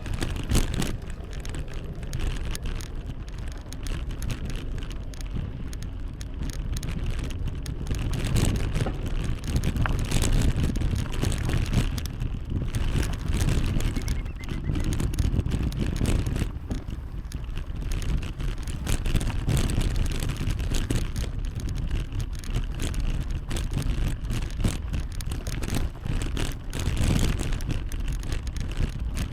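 Wind buffeting the microphone during a bicycle ride, heaviest at the low end and rising and falling unsteadily, mixed with the rush of riding along the road.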